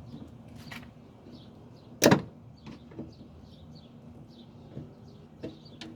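A sharp, loud clack about two seconds in, followed by a few lighter clicks and knocks, as an old gas strut's retaining clip is pried off a van's lift gate. Faint bird chirps repeat in the background.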